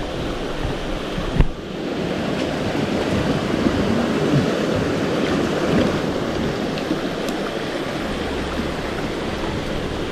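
Rushing river water, a steady even rush, with one sharp knock about a second and a half in.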